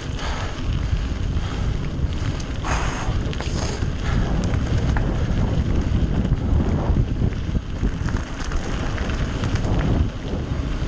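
Wind buffeting an action camera's microphone as a mountain bike rolls fast down a trail, with a low rumble and scattered light clicks and rattles from the bike. There are a couple of heavy breaths from the rider about three seconds in.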